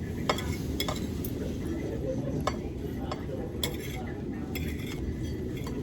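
Cutlery and dishes clinking at a dining table: about seven short, sharp clinks scattered over a steady low background of room noise.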